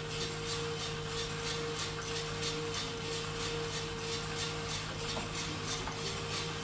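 Skywalker drum coffee roaster running mid-roast, a steady machine hum and fan hiss with a faint regular pulse from the turning drum. First crack has not yet started.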